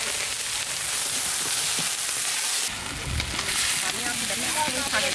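Spinach and green chilies boiling hard in a large steel tray of water, a steady bubbling hiss, with long-handled ladles stirring through the greens.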